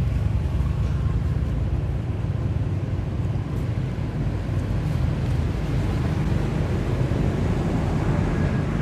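Steady low rumble and hiss of outdoor background noise, heaviest in the bass.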